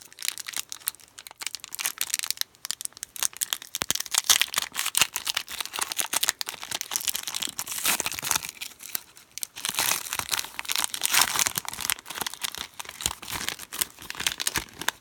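Wrapper of a basketball trading-card pack being torn open and crinkled in the hands, a dense, irregular crackling.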